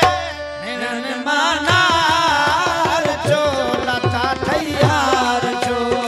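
Live folk music: a hand drum beating a steady rhythm with deep bending bass strokes, under a wavering, ornamented melody line and a held drone note.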